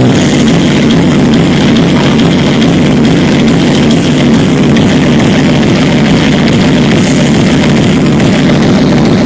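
Very loud music played through a large outdoor sound system, with a steady beat.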